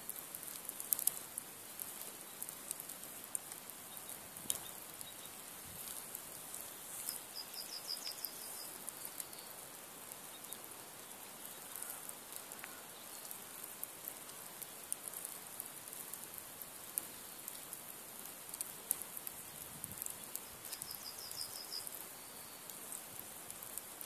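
Nadya log fire, two thick logs laid one on the other, burning low with soft, irregular crackling and a few sharper snaps. A small bird gives a short high trill twice in the background.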